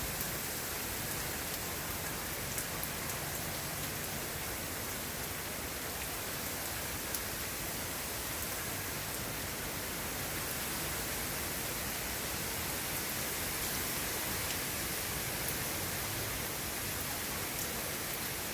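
Steady rain falling, an even hiss with a few sharp drop ticks scattered through it.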